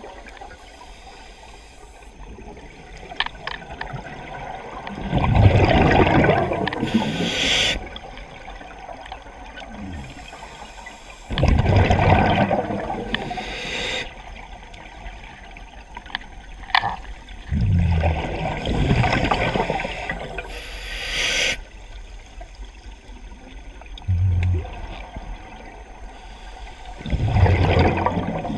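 Scuba regulator breathing underwater: four breaths, each a burst of gurgling exhaust bubbles lasting a couple of seconds, followed by a short, high hiss as the regulator delivers air.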